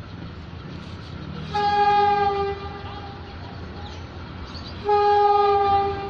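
Horn of PNR diesel locomotive DEL 902 sounding two single-tone blasts of about a second each, the first about one and a half seconds in and the second near the end, over a steady low rumble.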